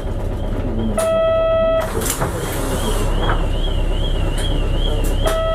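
City bus idling at a stop, its engine a steady low rumble, while two identical electronic beeps sound about four seconds apart and a high warbling electronic tone wavers in the background.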